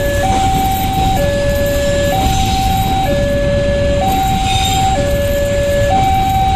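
Railroad level-crossing electronic alarm sounding, switching between a lower and a higher steady tone about once a second, over the low rumble of a container freight train rolling through the crossing.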